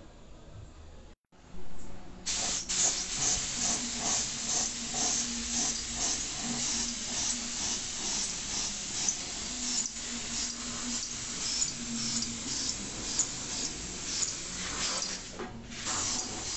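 Gravity-feed paint spray gun hissing as it sprays, starting about two seconds in, pulsing about three times a second over a low steady hum. The spray breaks off briefly near the end and starts again.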